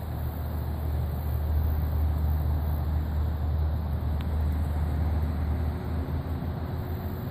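Wind buffeting the phone's microphone: a steady low rumble. A faint steady hum comes in near the end.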